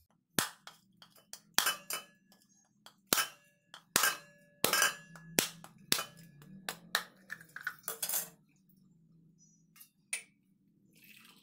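Husked coconut struck repeatedly along its ridge with an aruval (billhook knife) to crack the shell. It is a quick, irregular series of about fifteen sharp knocks over roughly eight seconds, some with a brief metallic ring. A couple of lighter taps come near the end.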